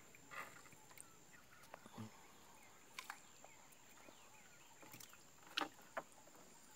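Near silence, with a few faint short clicks and taps as a gillnet is hauled hand over hand over the side of a wooden canoe.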